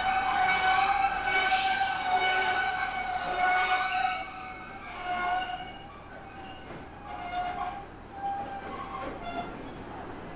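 Heritage passenger carriages rolling slowly past and braking to a stop, their steel wheels squealing in several high steady tones. The squeal is loudest for the first few seconds, then weakens and wavers as the train halts.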